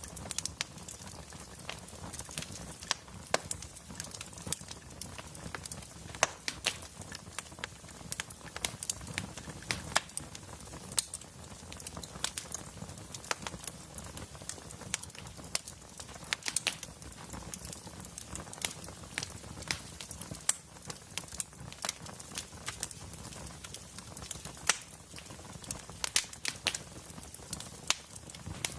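Wood fire crackling in a fireplace: irregular sharp pops and snaps of burning logs over a steady low rumble of flame.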